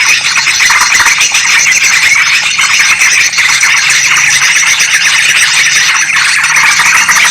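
Yellow-vented bulbuls and sooty-headed bulbuls chattering and calling together, a noisy, continuous tangle of quick bright notes.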